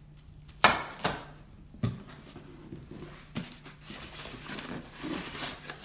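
Monitor packaging being handled as the stand parts are taken out of the box: three sharp knocks in the first two seconds, then steady rustling and scraping of packing material.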